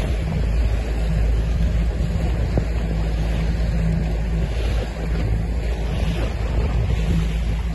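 Wind buffeting the phone microphone and water rushing past a moving boat, over the low steady hum of its engine.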